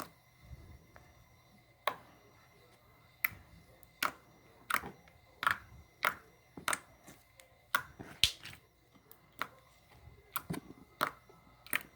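Irregular sharp clicks and pops, more than a dozen of them, from handling slime and its plastic container.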